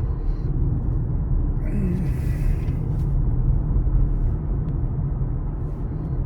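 Steady low rumble of a moving car, road and engine noise heard from inside, with a brief rushing hiss about two seconds in.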